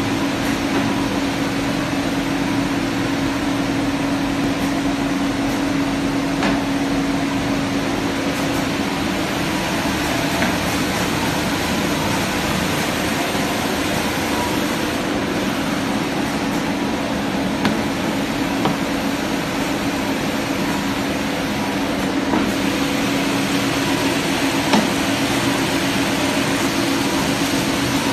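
Cigarette packaging machinery with an FS SHARK 500 stacker running: a steady machine noise with a constant hum and a few faint light clicks.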